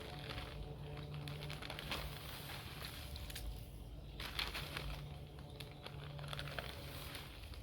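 Rustling and crinkling as hands set a potted canna lily in place, with scattered small clicks and a few brief louder rustles.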